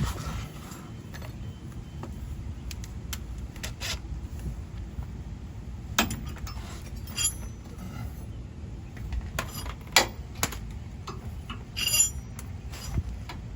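Hand tools and metal hardware clinking and clicking now and then during sway bar bushing work, a couple of the sharper clinks ringing briefly, over a steady low rumble.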